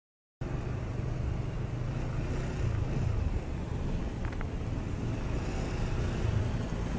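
Motorcycle running at low speed in heavy traffic: a steady low engine hum under wind and road noise on the rider's microphone. It starts abruptly about half a second in.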